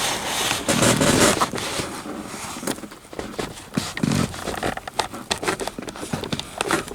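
Irregular rustling and scraping with many small clicks, like handling noise as things are moved about. It is louder in the first couple of seconds.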